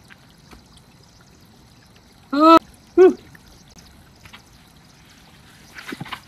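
Thin stream of water trickling down a rock gully, with scattered small knocks of hands and feet on rock. About two and a half seconds in come two short, loud cries, a little over half a second apart.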